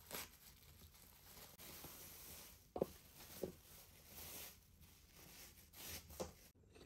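Near silence: faint room tone with soft handling noises and two light taps a little under a second apart, near the middle.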